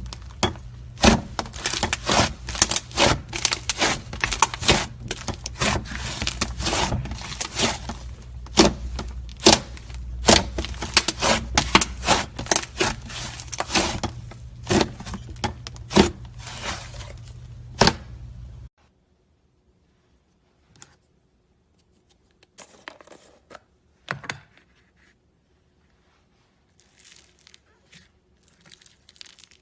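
Slime being squeezed and pressed, giving a rapid run of crackling, popping clicks. About two-thirds of the way through it cuts to a much quieter stretch of scattered soft clicks and pops.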